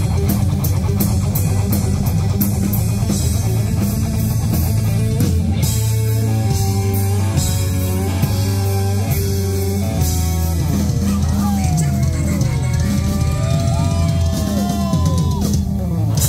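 Live rock band playing: electric guitar over a drum kit. Around the middle the band hits a run of short repeated chords, then in the last few seconds the lead guitar plays bent notes that slide up and down in pitch.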